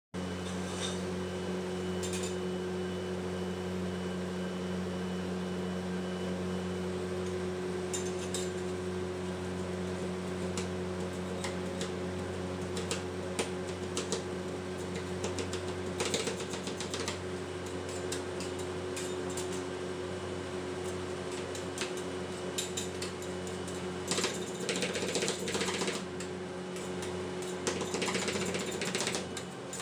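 Metal spatulas tapping and scraping on the steel cold plate of a rolled ice cream machine, chopping Oreo biscuits, with scattered clicks that turn into quick runs of rapid taps near the end. Under it runs a steady hum.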